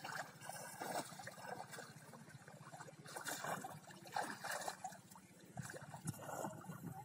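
Shallow pond water splashing and sloshing in irregular bursts as hands dig through the muddy bottom and legs wade.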